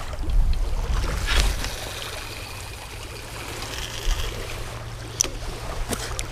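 Wind buffeting the microphone with a steady low rumble, over small lake waves lapping on a rocky shore. A couple of brief sharp clicks come near the end.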